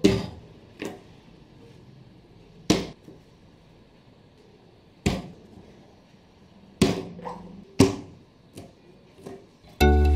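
About half a dozen sharp knocks and taps a second or two apart, as craft items (scissors, a glue bottle, a roll of tape) are set down one by one on chart paper over a wooden table. Music starts near the end.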